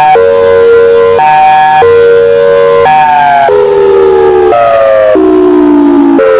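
Thunderbolt 1002B outdoor warning siren sounding a hi-lo signal, its pitch jumping between a higher and a lower tone about once a second. From about halfway through, each tone slides steadily lower as the siren winds down.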